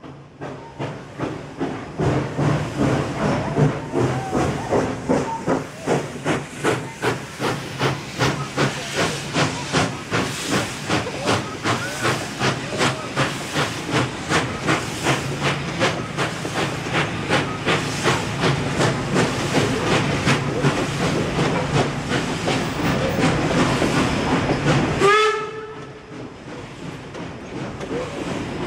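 Baldwin steam locomotive No. 820 working hard under load, its exhaust chuffing in a steady beat with steam hissing. About 25 s in there is a short blast on its steam whistle, and then the beat stops and the passenger coaches roll past.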